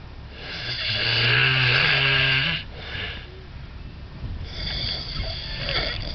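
A person snoring: one long, loud snore with a low buzzing pitch lasting about two seconds, a short softer breath, then a second, hissier snore near the end.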